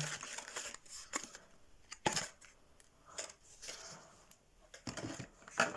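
Packaging being handled as a model locomotive is lifted out of its box: irregular rustles and small clicks, the sharpest about two seconds in and near the end.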